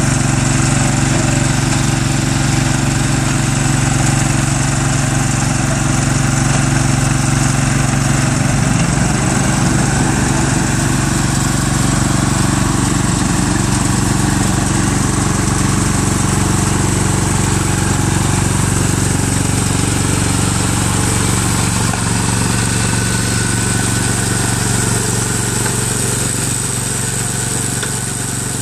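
Engine of an Ammann AFW 150 G mini asphalt paver running steadily as the machine paves.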